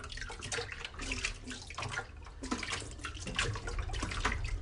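Water splashing and sloshing in a sink basin as hands work through raw chitterlings, in irregular bursts rather than a steady stream.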